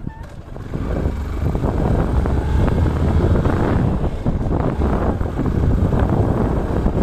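Motorcycle riding along, its engine rumbling under heavy wind rush on the microphone. The noise dips briefly at the start and grows louder about a second in.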